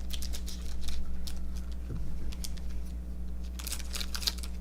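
Trading cards being handled and flipped through by hand: scattered light papery clicks and rustles over a steady low electrical hum.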